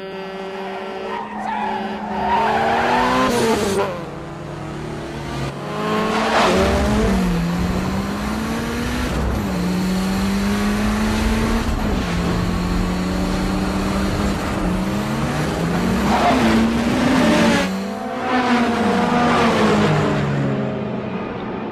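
Several small sports cars' engines revving hard at speed, the pitch climbing and dropping back again and again with gear changes, with cars sweeping past close by several times.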